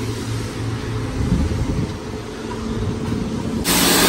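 Self-service car wash: a low steady hum while the foam brush is worked over the car. About three and a half seconds in, it gives way suddenly to the loud hiss of the high-pressure lance spraying water.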